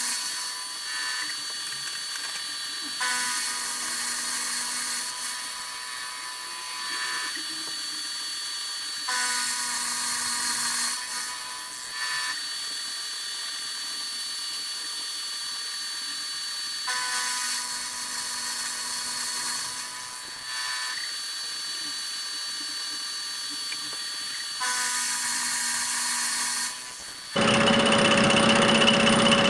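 Vertical milling machine running, its end mill cutting a slot in a small metal bar: a steady motor whine with louder passes of cutting noise every few seconds. Near the end the sound turns suddenly louder and rougher.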